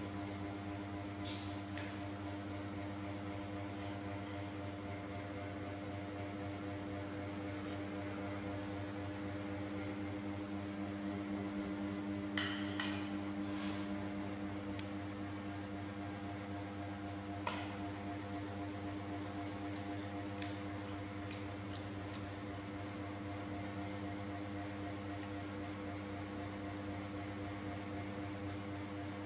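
A steady mechanical hum with several fixed tones, like a room fan or air conditioner running. A short high-pitched squeak about a second in, brief crackling sounds around the middle, and a single click.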